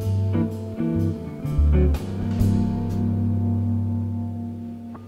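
Music soundtrack led by guitar, with a few sharp hits early on; about two seconds in a low chord is left ringing and slowly fades away.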